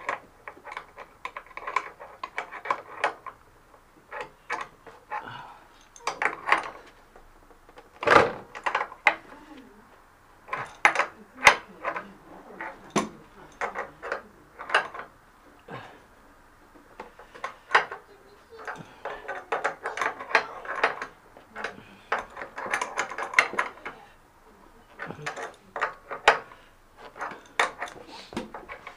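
Wrench and metal tools working a special puller on a spin bike's crank: irregular metallic clicks and knocks, some in quick ratcheting runs.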